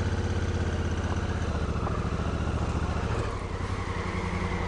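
Honda Africa Twin CRF1000L's parallel-twin engine running steadily at low revs under light throttle while the bike rolls slowly, easing off slightly a little over three seconds in.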